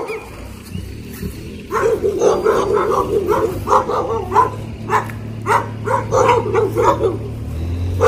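Dogs barking repeatedly, about two barks a second, starting about two seconds in. A steady low hum runs underneath and grows louder near the end.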